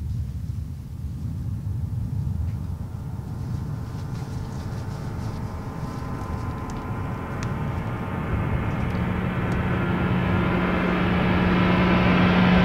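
Low rumbling suspense drone from a horror score. It swells steadily louder, and held tones come in over the second half as it builds into a rising crescendo.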